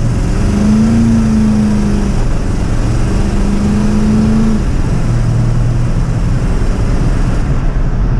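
4x4 truck's engine at full throttle from inside the cab, accelerating hard from a boosted launch with the torque converter locked. The engine note breaks off about two seconds in, comes back, and drops to a lower pitch about four and a half seconds in as the transmission shifts.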